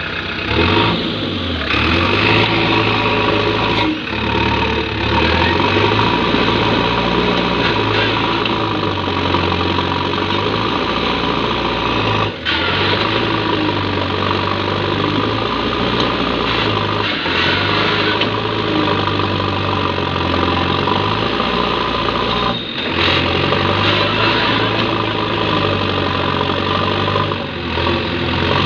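JCB 3DX Eco backhoe loader's four-cylinder diesel engine running hard under load, its revs rising and falling as the machine works its loader and wheels in deep compost. The sound dips briefly three times.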